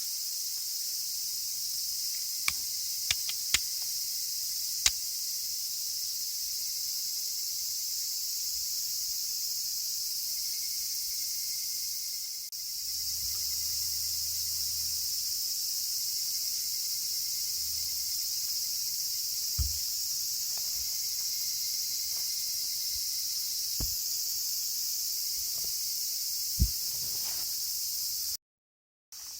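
Steady high-pitched chorus of evening insects, with a few sharp clicks: a quick cluster of four in the first five seconds, then single ones spread through the rest. The sound cuts out completely for about a second near the end.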